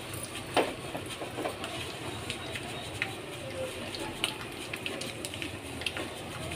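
Tempering spices (dried red chillies, mustard seeds, cumin, asafoetida) sizzling in hot oil in a small kadai, a steady hiss with scattered sharp pops and crackles.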